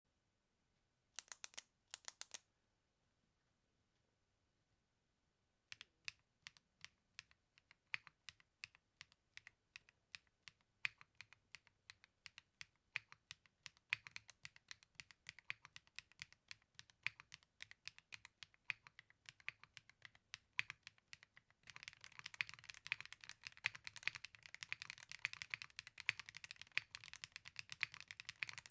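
Keystrokes on a custom Tata80 mechanical keyboard with WS Aurora Pink linear switches, a polycarbonate plate on a swan gasket mount and CXA keycaps. Two short bursts of keypresses near the start and a pause, then single keystrokes that pick up pace and turn into fast continuous typing about three quarters of the way through.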